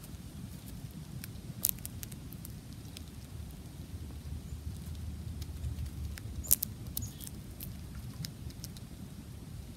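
Squirrel eating birdseed close to the microphone: quick small clicks and crunches of seeds being husked and chewed, with two sharper cracks, one near the start and one past the middle, over a low rumble.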